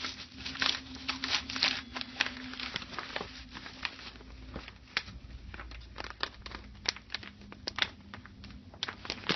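Plastic packaging crinkling and rustling with irregular clicks and taps, as an iPhone is handled into place between a water-damage kit's two sieve packs. A faint steady hum sits underneath for the first half.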